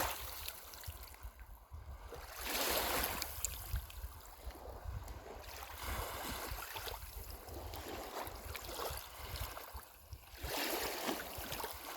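Small waves on calm Lake Superior washing onto a pebbly shore, coming in soft swells every few seconds, with a low wind rumble on the microphone underneath.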